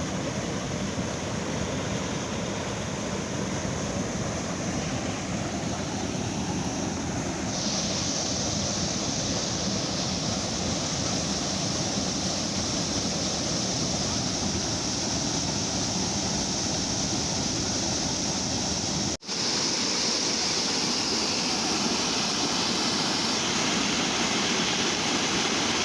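Waterfall rushing steadily as a continuous roar of falling water. The hiss grows brighter about a quarter of the way in, and the sound drops out for an instant about two-thirds of the way through.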